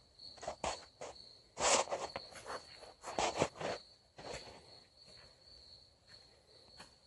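Scattered rustles and knocks of someone moving about and handling gear while getting set up, the loudest about two and three and a half seconds in, over a faint steady high-pitched trill. No plasma arc cutting is heard yet.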